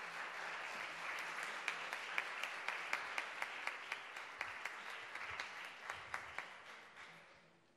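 Audience applauding, with sharp individual claps standing out close to the microphone; the applause dies away near the end.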